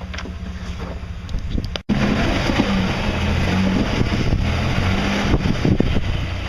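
Off-road 4x4's engine idling with a steady pulse; a little under two seconds in the sound cuts out for an instant and returns louder, the engine running with its pitch rising and falling and wind buffeting the microphone.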